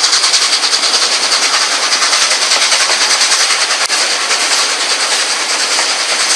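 Steam-hauled passenger train running along, heard from an open carriage window: a steady rush of wheel and air noise, with one sharp click about four seconds in.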